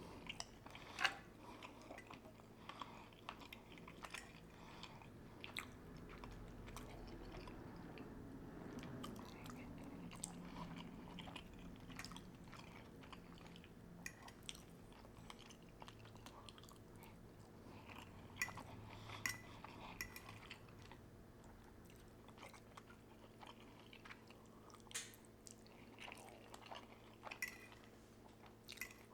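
A man chewing food close to the microphone: soft mouth sounds with scattered sharp clicks and smacks, the loudest about a second in.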